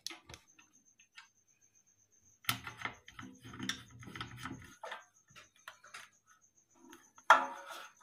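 Light clicks, taps and scrapes of a screwdriver and metal blade brackets being handled as the blades are screwed onto a ceiling fan's motor housing. A low hum runs for about two seconds in the middle, and a sharper click comes about seven seconds in.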